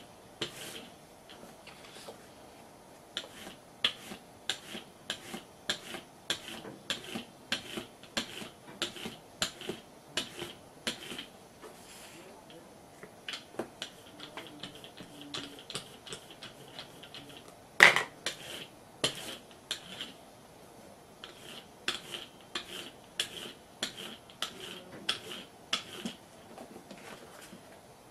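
A hand brayer roller being rolled back and forth over an ink pad to load it with blue ink, giving a string of irregular light clicks and ticks, with one louder knock partway through.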